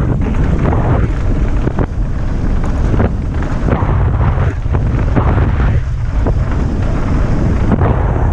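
Wind buffeting the microphone of an action camera on a downhill mountain bike at speed, a loud steady rumble, with frequent short knocks and rattles from the bike riding over rough trail.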